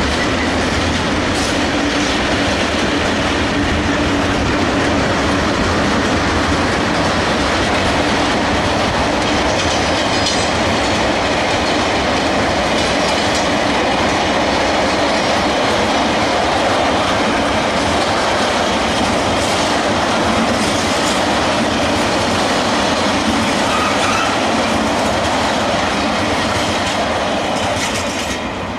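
A freight train rolling past: a steady loud rumble and clatter of steel wheels on rail, with clicks over the rail joints and a little wheel squeal. It eases off near the end.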